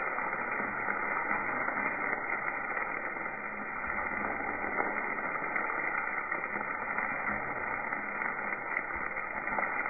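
Duck meat frying in butter in a pan, a steady sizzling hiss with no breaks.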